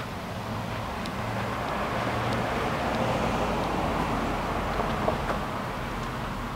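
A road vehicle passing by: a steady engine-and-tyre noise that swells to its loudest in the middle and then fades away.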